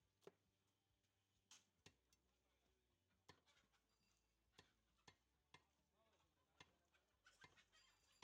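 Cleaver chopping beef on a wooden log chopping block: about nine faint, sharp knocks at an irregular pace, a second or so apart.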